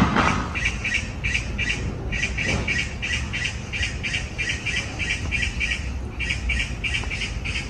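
Rapid high-pitched chirping calls repeating about three to four times a second, with brief pauses about two and six seconds in.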